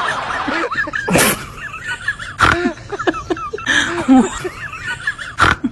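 Short squeaky animal calls, each bending up and down in pitch, broken by three sharp noisy bursts.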